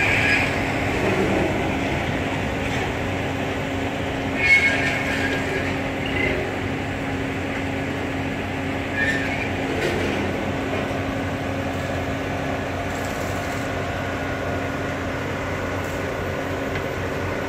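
SUZ 500 track-renewal train's machinery running with a steady, droning hum. Brief metallic squeals come a few times, the loudest about four and a half seconds in.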